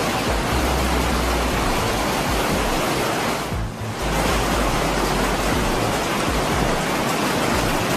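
Heavy hailstorm: a dense, steady hiss of hailstones pelting the pavement, with strong wind rumbling on the microphone. It dips briefly a few seconds in.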